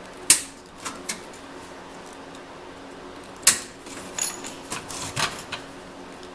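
Wire mesh and tie wire being worked with diagonal pliers: two sharp metallic clicks about three seconds apart, with lighter clicks and rattles of the mesh in between and toward the end.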